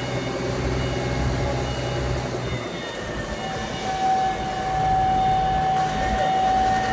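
Heavy vehicle or machinery engine running, joined about three and a half seconds in by a steady high tone that holds to the end.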